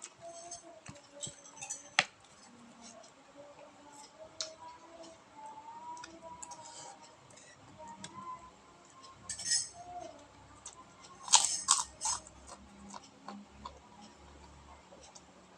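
Eating sounds: a spoon clinking against a plate and crunching of crackers and food, as scattered sharp clicks with two louder flurries partway through.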